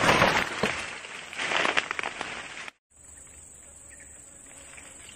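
Loud rustling and knocks of clothing and fishing gear brushing close to the microphone for about two and a half seconds. Then a sudden cut to a steady high insect drone with a few faint bird chirps.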